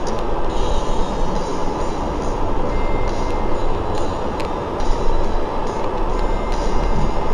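Steady rumbling drone of a double-decker bus, heard from inside on the top deck while it drives, with a few sharp rattles or clicks about halfway through.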